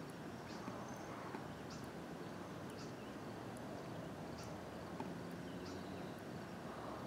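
A small bird chirping outdoors: a short, high call repeated every second or so over a steady low background hum.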